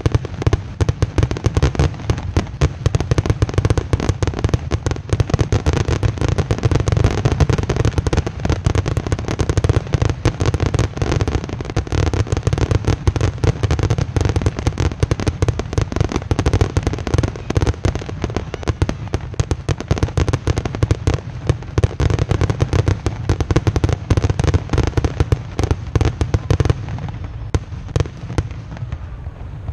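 Fireworks grand finale: a dense, nonstop barrage of shell bursts and crackling reports with a deep rumble, thinning out near the end.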